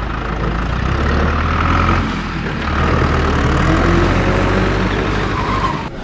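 A motor running steadily, a rough, noisy hum with a strong low rumble, which cuts off suddenly near the end.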